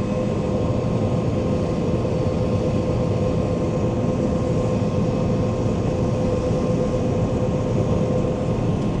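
Heavy diesel farm or truck engine running steadily under load, with a constant whine over the engine noise.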